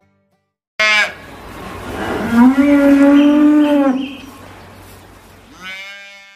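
A cow mooing: a short call about a second in, then one long, steady moo of about two seconds, and a shorter call near the end.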